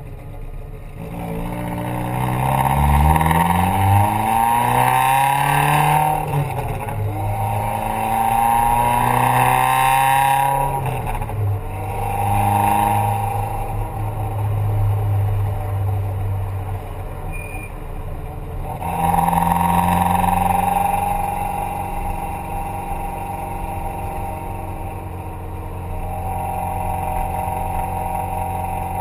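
Vehicle engine revved several times, its pitch climbing and falling back with each blip, then held at a steady speed for the last part.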